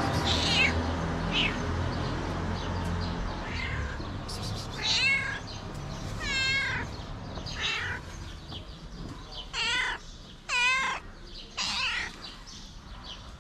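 A hungry calico stray cat meowing over and over, about eight calls, several of them long and wavering in pitch.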